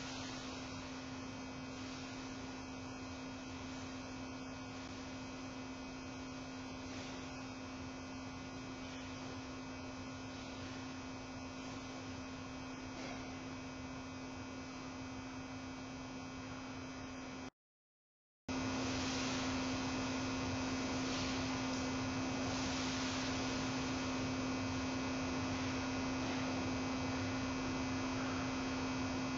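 Steady one-tone hum over an even hiss, the background of a webcam's audio feed. It cuts out for about a second midway and comes back slightly louder.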